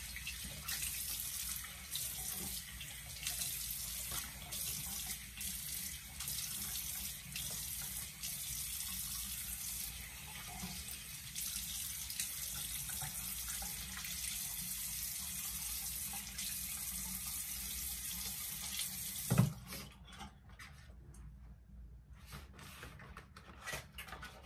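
Water from a tap running into a sink, splashing as a face is washed. Near the end there is a thump and the running water stops, leaving a few small clicks.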